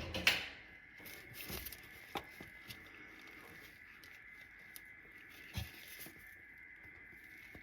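Scattered small clicks and rustling handling noises as rubber fuel hoses are plugged by hand, with a faint steady high tone underneath.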